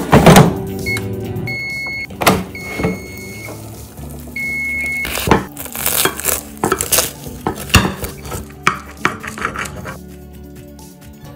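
An air fryer drawer slid shut with a clunk, then several short electronic beeps as the appliance is set. Later comes a run of sharp crackles and clicks as a knife cuts through crisp baked puff pastry on a plate, over background music.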